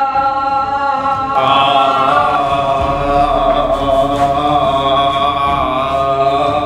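Voices chanting long, steady held tones together, a drone-like mantra sound. More voices join and it grows fuller and louder about a second and a half in.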